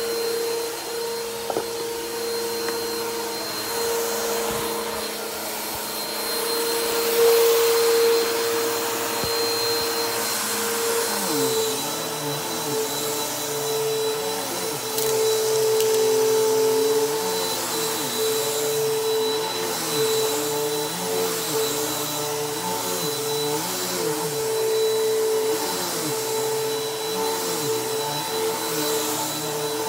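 Bissell PowerForce Helix upright vacuum cleaner running steadily with a constant motor whine. From about a third of the way in, a lower tone wavers up and down over and over.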